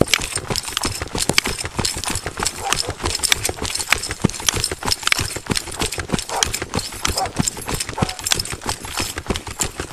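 Running footsteps on a paved road heard through a chest-worn police body camera: a quick, uneven patter of thuds with each stride as the camera jolts against the uniform.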